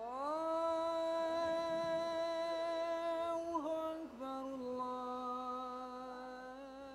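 A single voice sings or chants one long held note without a break. It slides up at the start, steps down slightly about four seconds in, and wavers near the end.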